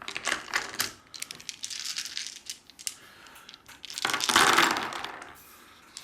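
A handful of small plastic dice clattering as they are rolled and gathered up, in quick clicks, with a louder rattling roll about four seconds in.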